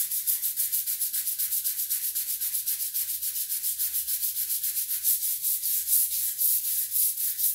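Long-handled scrub brush scrubbing wet ceramic floor tiles in brisk, even back-and-forth strokes, about five a second. The tiles are dressed with oxalic acid cleaning powder to lift scale and rust stains.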